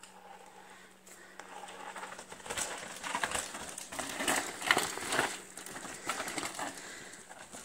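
A mountain bike rolling down a rocky dirt trail close by: tyres running over rock and dirt, with clatters and knocks from the bike. The noise builds to its loudest just past the middle as the rider goes by, then fades.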